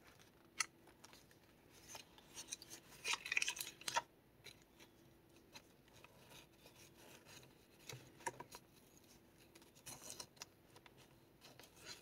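Faint paper rustling and small clicks as hands handle a handmade junk journal's pages and unwind a string tie from metal brads on a pocket. The crispest rustle comes about three seconds in.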